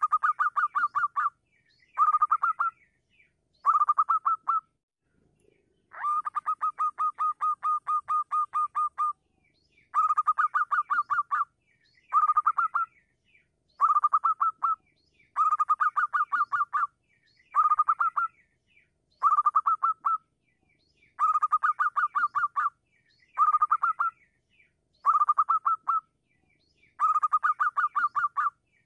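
Zebra dove (perkutut) singing: bursts of rapid staccato cooing notes at one steady pitch, each burst about a second long and repeated every couple of seconds, with one longer run of about three seconds about six seconds in.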